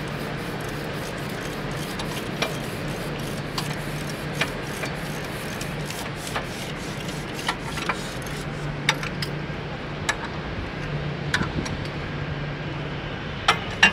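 Hand tools and steel parts clinking: sharp, irregular metal clicks and taps as wrenches, sockets and bolts knock against a bulldozer's steel sprocket segments, over a steady low background hum. The loudest clink comes near the end.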